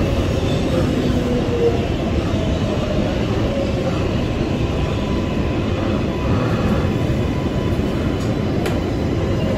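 Kawasaki R188 subway car running along the track, heard from on board: a steady rumble of wheels on rail with faint thin tones drifting in and out.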